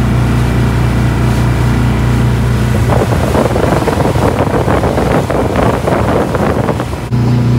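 Fishing boat's engine running steadily under way. About three seconds in, the engine drops out and gives way to wind buffeting the microphone over open water.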